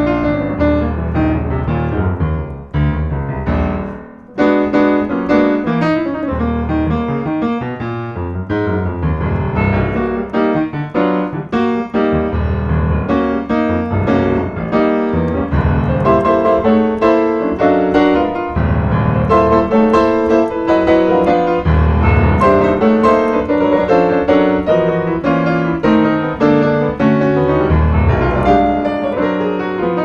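Yamaha piano played in an instrumental jazz passage, full chords and runs of notes, with a short break in the playing about four seconds in.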